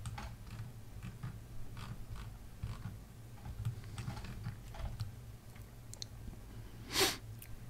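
Scattered faint clicks of a computer mouse and keyboard, with one louder click about seven seconds in, over a low steady hum.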